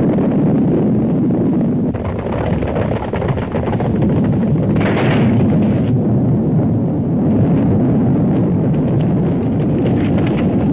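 Continuous loud rumbling with blasts, like explosions and gunfire on an old 1930s film soundtrack, with a brighter burst about five seconds in.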